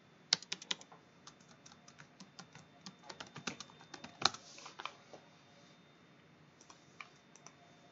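Typing on a computer keyboard: irregular keystrokes, busiest in the first five seconds, then a pause and a few more near the end.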